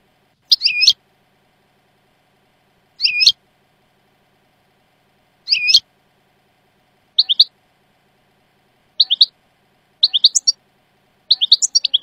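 European goldfinch song from a tutoring recording in the Jordanian song style, used to teach young goldfinches. Seven short high twittering phrases come between silences. The gaps shorten from about two and a half seconds to about one, and the last phrases are quick strings of notes.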